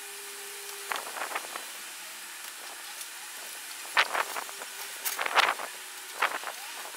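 Paintbrush dabbing and scraping rust-treatment liquid onto a steel car battery tray: short clusters of taps and scrapes about a second in, then several louder ones over the second half, over a steady faint hiss.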